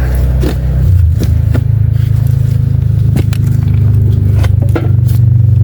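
A steady low motor hum, with scattered sharp metallic clanks and scrapes as the engine and transaxle are pushed and shifted against each other while being mated.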